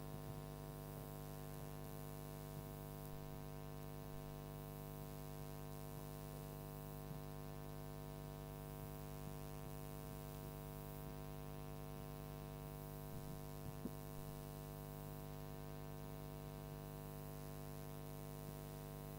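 Steady electrical mains hum with many overtones from the church sound system, unchanging throughout, with a couple of faint knocks near the end.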